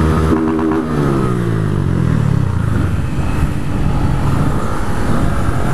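Honda motorcycle engine heard from the rider's seat, its revs falling smoothly over the first two or three seconds as the throttle comes off, then running on at a lower, steady pace.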